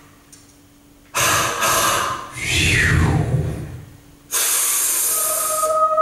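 Alto saxophone played with extended breath techniques: loud rushing air-noise blown through the instrument about a second in, sliding down in pitch with a low rumble underneath. Just past four seconds a second burst of breath noise starts, and steady pitched tones rise out of it near the end.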